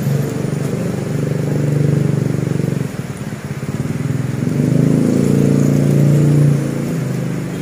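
Small motorcycle engines running close by, loudest twice: through the first three seconds and again from about four and a half to six and a half seconds in. Steady rain hisses underneath.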